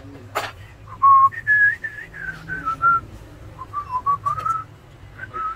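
A person whistling a tune, one pure note stepping and sliding up and down from about a second in. A single sharp click comes just before it.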